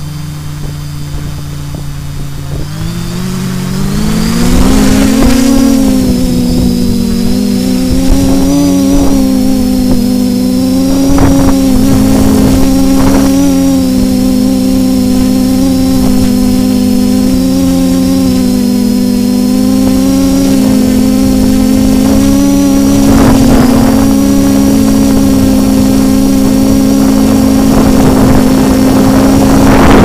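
DJI F450-frame quadcopter's brushless motors and propellers, heard from its onboard camera. They start as a steady lower hum, then spin up with a rising whine about two and a half seconds in as it lifts off. After that they run at a steady higher pitch that wavers up and down as the motors correct in gusty wind. Gusts of wind hit the microphone now and then, heaviest near the end.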